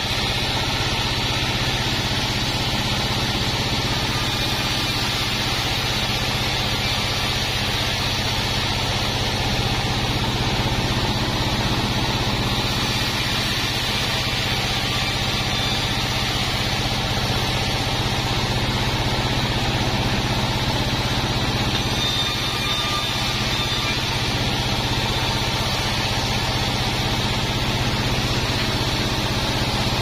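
A 36-inch band sawmill running steadily as a board of wadang timber is fed through the blade and resawn into planks, a constant loud machine sound with no pauses.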